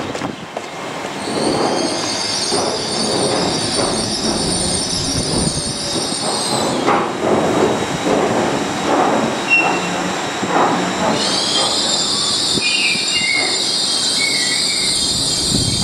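TransPennine Express Class 802 bi-mode train braking as it comes in to stop, with high-pitched brake squeal. The squeal fades for a few seconds midway and returns near the end, over the rumble and knock of wheels on the rails.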